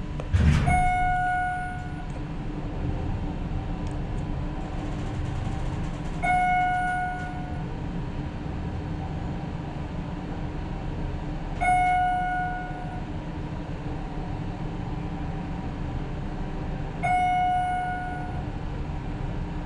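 Inside a descending Schindler MT/300A hydraulic elevator cab: a single-tone electronic chime sounds four times, about every five and a half seconds, as the car passes floors. Under it runs the steady whir of the cab fan, and a short knock comes right at the start.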